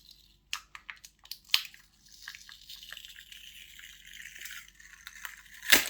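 Phone battery being pried and pulled off its adhesive: a few sharp clicks, then a long crackling as the sticky backing peels away, ending in one loud snap.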